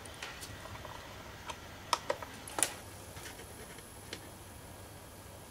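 Scattered light clicks and taps from small objects being handled, with a sharp cluster of them about two to two and a half seconds in and one more a little after four seconds.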